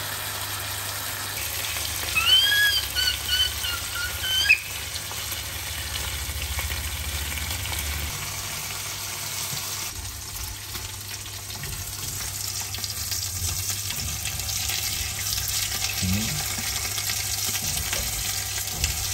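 Beef steaks and garlic cloves sizzling as they fry in a nonstick pan, stirred and turned with chopsticks. About two seconds in come a few short, high-pitched squeaky calls.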